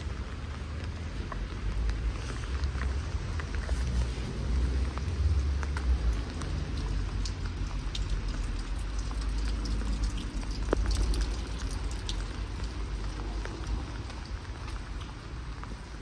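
Light rain pattering on a paved path and walls: a steady hiss full of small drop ticks, with a low rumble underneath.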